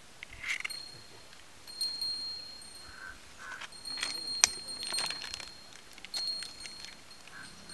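High tinkling, chime-like tones come and go, mixed with a few short calls, and there is one sharp click about four and a half seconds in.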